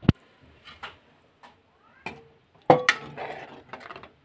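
A stainless steel bowl clinking and knocking against a cooking pot as boiled chicken pieces are tipped into the soup. A sharp knock comes at the start, scattered light clinks follow, and a louder metallic clatter with a short ring comes a little under three seconds in.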